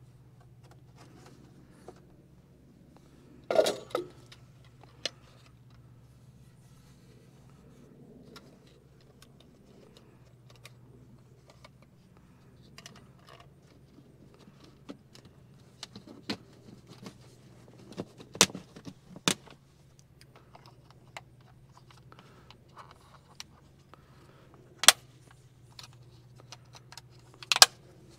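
Tractor air filter elements being handled and fitted into the plastic air box: scattered clicks, rattles and scrapes, with a few sharper knocks, the loudest about three and a half seconds in and two near the end.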